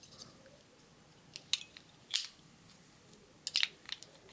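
AA batteries being pressed into a plastic battery tray for the Orbit Yard Enforcer's motion sensor, giving a handful of short, sharp clicks that bunch together near the end.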